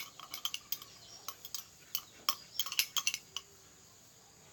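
Metal spoon stirring liquid in a drinking glass, clinking against the glass's sides in quick, irregular taps that stop about three and a half seconds in.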